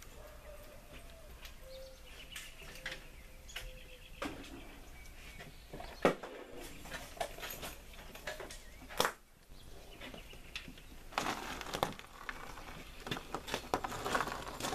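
Quiet outdoor background with scattered knocks and clicks, then, near the end, louder crunching and clatter as the Suzuki Volusia motorcycle is pushed over gravel.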